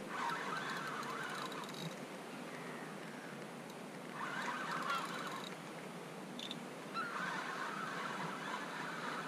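Spinning reel being cranked in three bursts, a whirring that winds line back in against a hooked fish.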